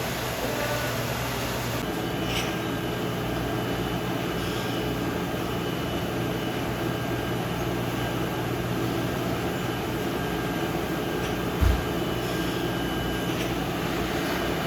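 Jam production-line machinery running steadily: a low hum with a thin high whine that sets in about two seconds in, a few faint ticks, and one short low thump near the end.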